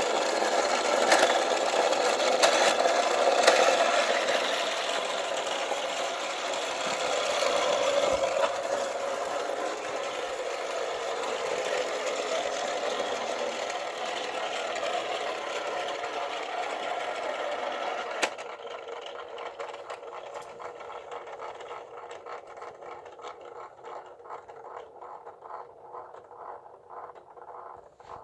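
Vintage wind-up tin toy police car's clockwork spring motor whirring with a steady mechanical buzz. After about 18 seconds it turns quieter and breaks into separate ticking pulses that slow down as the spring runs down.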